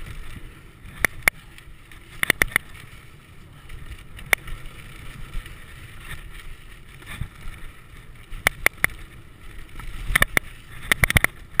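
Mountain bike running fast down a dirt trail, heard from a camera mounted on the handlebars: a steady rumble of tyres on dirt and wind. Sharp, irregular clacks and rattles come from the bike as it goes over bumps, some in quick clusters.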